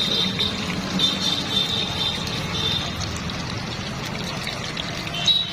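Momos deep-frying in hot oil: a steady sizzle with small crackles.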